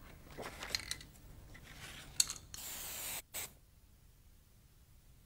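Aerosol spray can hissing in one spray of about three-quarters of a second that cuts off sharply, then a brief second puff. Before it come a few small clicks and rattles, with one sharp click just before the spray.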